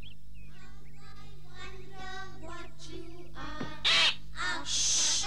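Light background music, then a cartoon parrot squawks loudly twice near the end: a short call, then a longer, shriller one.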